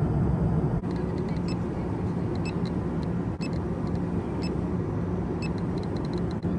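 Steady airliner cabin drone at cruising altitude. Over it, a GQ GMC-300E Plus Geiger counter gives short, irregular clicks, a few a second, counting cosmic radiation at about 236 counts per minute.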